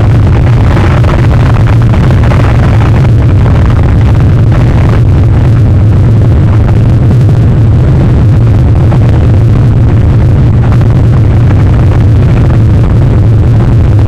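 Storm wind buffeting an outdoor camera microphone: a loud, steady low rumble with a rough hiss over it.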